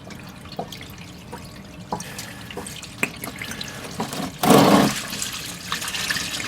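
Old engine oil pouring from the open drain plug hole into a drain pan, a steady trickling stream with a few small clicks, and a brief louder burst of noise about four and a half seconds in.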